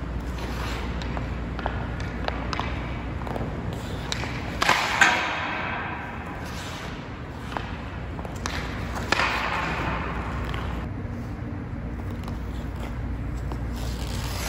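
STX Stallion HPR 2 composite hockey stick shooting pucks on ice: a string of sharp cracks as the blade strikes the puck, the loudest about five seconds in and again near nine seconds, each ringing on through the rink's echo.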